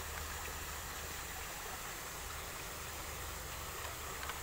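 Steady outdoor background hiss with a low hum underneath and no distinct event.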